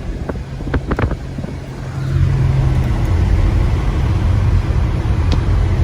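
Road noise inside a 2019 Subaru driving on a snow-covered road: a low rumble of engine and tyres that grows louder about two seconds in and then holds steady, with a few light clicks in the first second.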